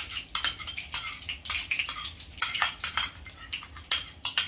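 A metal spoon scraping and clinking against a glass bowl in quick, irregular strokes as thick ghee is scooped out into a steel kadai.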